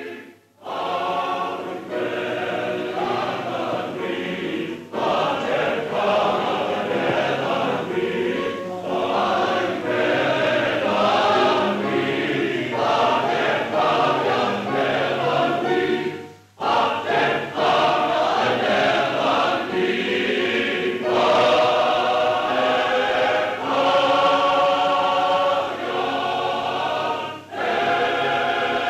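Choir singing on a 1940s film soundtrack, in long phrases broken by short pauses, the clearest about 5 and 16 seconds in.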